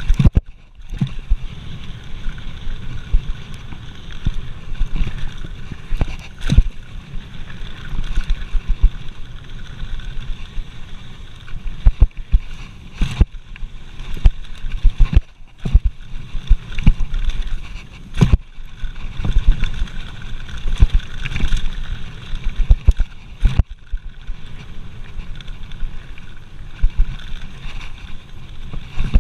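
Mountain bike rolling fast down a dirt jump trail: a steady low rumble of the ride, broken by irregular sharp clatters and knocks as the bike hits bumps and landings.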